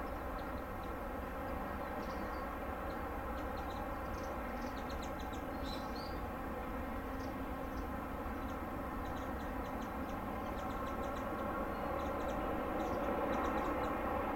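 Steady drone of a large ship's engines, a stack of even tones that grows a little louder near the end. Faint high chirps sound over it.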